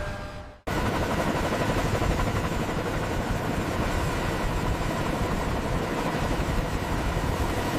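Dense, steady mechanical noise with a faint steady hum in it, starting abruptly just over half a second in after a brief drop-out.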